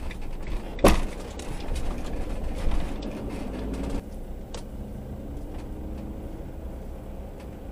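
Motorhome rolling slowly through a car park, heard from inside the cab: a steady low engine and road rumble, with one sharp knock about a second in.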